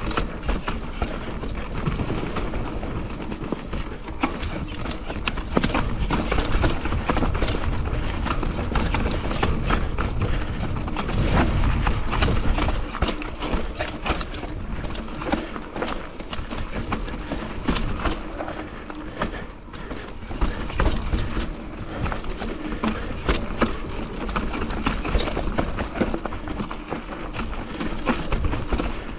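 Mountain bike descending a steep, rough trail: tyres clattering over roots and rock, the bike rattling and knocking with each irregular impact.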